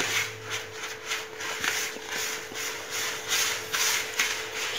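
A hand stirring and rubbing dry semolina, flour and sugar together in a mixing bowl: a rhythmic, grainy rustle of about two to three strokes a second.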